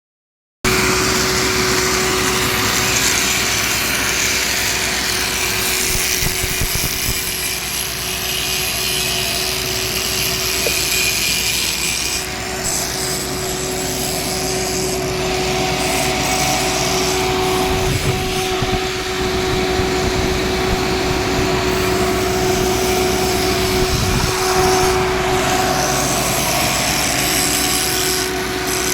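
A machine with an electric motor running steadily: a constant hum under a rough, scratchy noise, with a few dull knocks.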